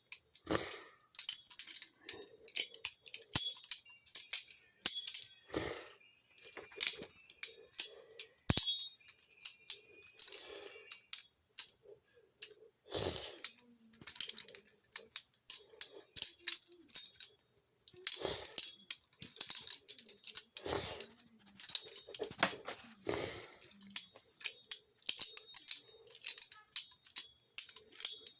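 Balisong (butterfly knife) being flipped: irregular runs of sharp metallic clicks and clacks as the handles swing around the pivots and slap together, with short pauses between runs.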